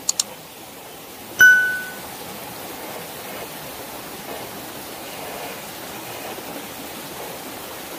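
Steady rush of a small waterfall running down a rock face. Right at the start two quick clicks, then about a second and a half in a single bright ding that rings briefly: a subscribe-button sound effect.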